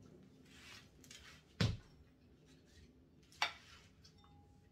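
Two sharp clinks of tableware, about two seconds apart, as a metal spoon and ceramic dishes are handled on a table, with faint rustling before the first.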